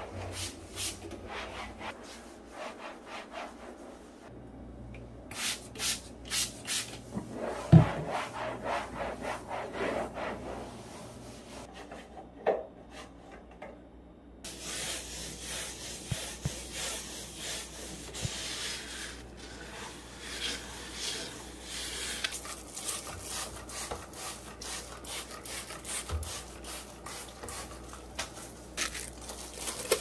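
Hand wiping refrigerator surfaces with a cloth and a paper towel: repeated rubbing strokes, with a single knock about eight seconds in.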